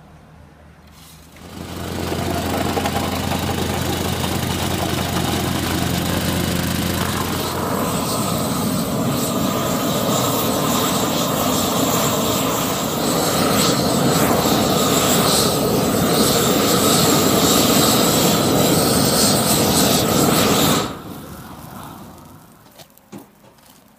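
Propane gas torch burning with a steady roar, drying the edges of a freshly laid asphalt pothole patch. A low hum sits under it at first; about seven seconds in the roar turns brighter and hissier, and it stops shortly before the end.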